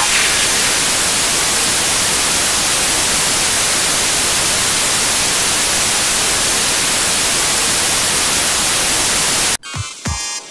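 Loud, steady static hiss like white noise, cutting off abruptly about nine and a half seconds in; electronic music with a beat starts just before the end.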